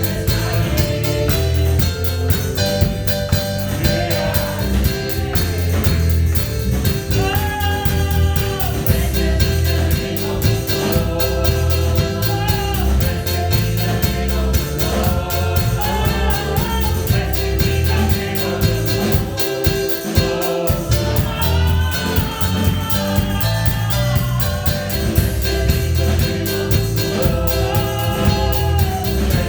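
Gospel worship music: voices singing a melody over a band with a steady bass and drum kit.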